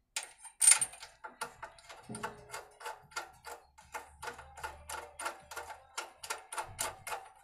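An even run of light metallic clicks, about four a second, from hand work at a petrol generator's carburetor.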